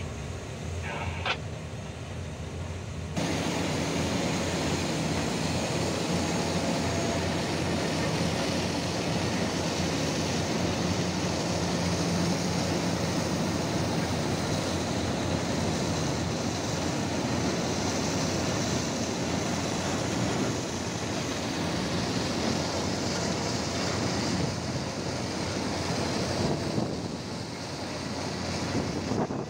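Steady, loud rushing noise of a floating crane loading coal: conveyor and chute running with coal pouring into a ship's hold, mixed with wind on the microphone. It gets suddenly louder about three seconds in and then holds level.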